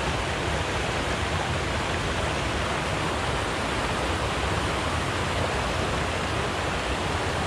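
Fast-running stream water rushing steadily over a shallow rocky riffle.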